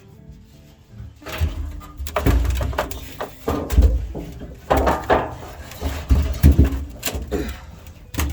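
Repeated thumps, knocks and scraping as a heavy pickup fuel tank holding some fuel is shifted and wrestled onto a jack, starting about a second in.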